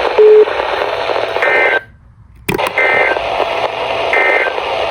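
NOAA Weather Radio SAME end-of-message data bursts: three short warbling two-tone chirps about a second and a half apart over radio static, marking the end of the weekly test broadcast. A short low beep sounds near the start, and the static briefly cuts out about two seconds in.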